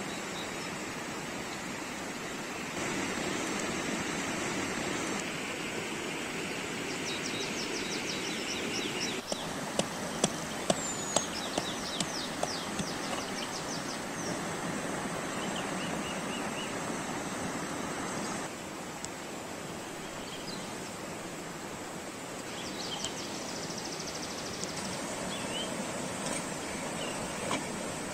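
A rushing stream runs steadily, and about ten seconds in a knife knocks sharply on a hard baked salt crust around seven times, cracking it open over the fish. Small birds chirp faintly.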